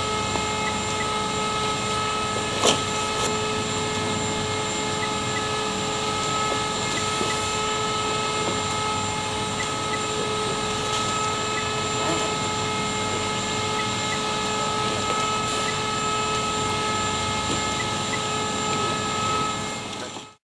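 In-motion checkweigher's belt conveyor and drive motors running steadily: an even mechanical whir with several steady whining tones, and a single sharp knock about three seconds in. The sound fades out at the very end.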